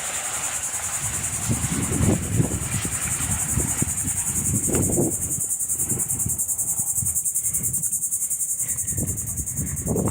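Insects trilling: a steady, high-pitched, fast-pulsing buzz, with irregular low rumbles underneath.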